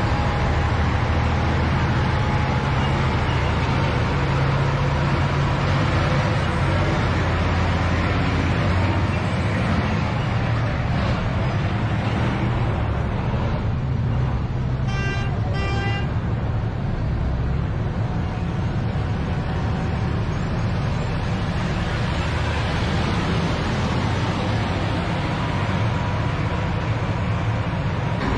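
Low, steady rumble of tanks and military trucks driving past on a paved street, their heavy engines running. About halfway through, two short horn toots.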